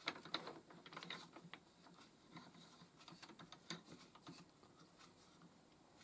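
Faint, scattered small clicks and taps from a wooden pen blank being set into a metal lathe's four-jaw chuck and the chuck key being turned. The clicks come most often in the first two seconds.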